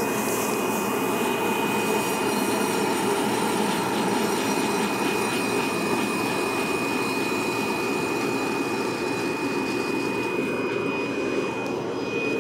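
Hot-air fluid-bed coffee roaster running: its blower drives a steady rush of hot air through the roasting chamber, with a thin steady high whine over it.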